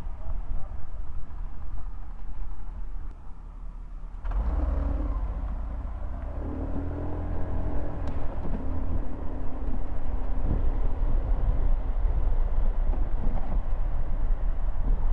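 City road traffic heard from a moving bicycle: motor vehicle engines running close by, with a low rumble that gets suddenly louder about four seconds in and an engine hum for several seconds in the middle.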